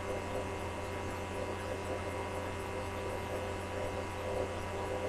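Steady electrical mains hum with faint hiss, unchanging throughout, with no other distinct sound.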